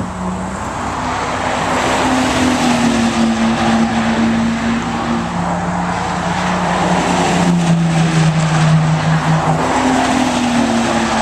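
Sports cars driving past at speed on the race circuit, one after another. Each engine note swells, holds for a few seconds and fades as the car goes by, over steady tyre and wind noise.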